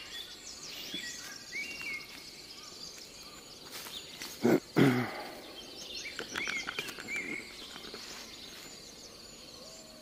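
Small forest birds chirping and twittering softly throughout, with two short, louder low calls close together about four and a half seconds in.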